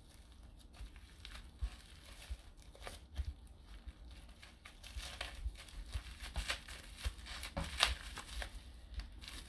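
Plastic-wrapped bamboo sushi mat crinkling and rustling under the hands as a sushi roll is rolled up and pressed, with irregular small crackles that grow busier in the second half.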